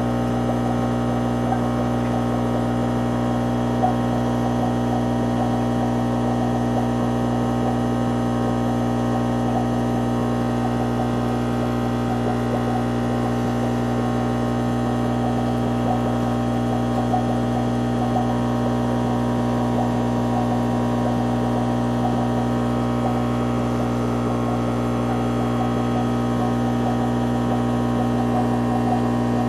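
Aquarium air pump humming steadily, a constant low mains-frequency buzz with no change.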